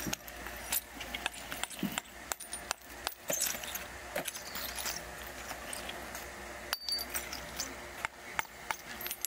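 Metalworking shop sounds: irregular metallic clinks, taps and knocks of steel parts being handled and worked, over a steady low machine hum. The sound drops out briefly about seven seconds in.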